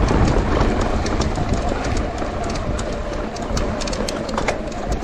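Electric mountain bike climbing a rough trail: tyres and frame rattling and clattering over rocks with many small knocks, under a faint steady whine from the Shimano EP8 mid-drive motor.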